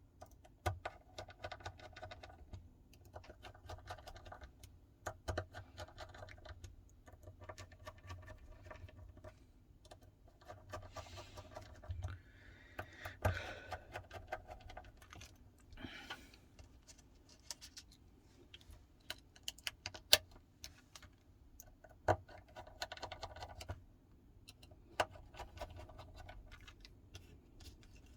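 Small screws being driven into a Samsung Galaxy Note 9's frame: scattered light clicks and taps of a precision screwdriver and other small tools on the phone's metal and plastic parts.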